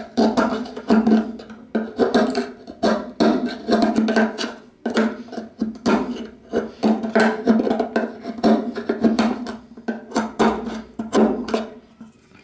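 Screwdriver tip scraping and clicking irregularly against the plastic fuel-filler door, cleaning out the remains of its broken hinges.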